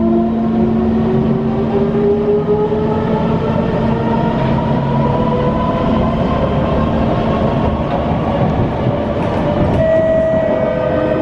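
C151 train's traction motors whining strongly under power, their pitch rising steadily as the train gathers speed out of the station, over running-gear rumble. About ten seconds in, a steady higher tone comes in.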